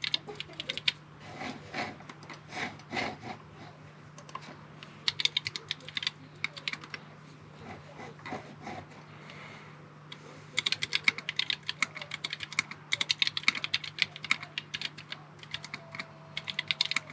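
Typing on a Gergoplex keyboard with Krytox-lubed 12 g Kailh Choc Red low-profile switches and MBK keycaps: quick keystroke clacks in bursts with short pauses, busiest in the second half. A steady low electrical hum sits underneath.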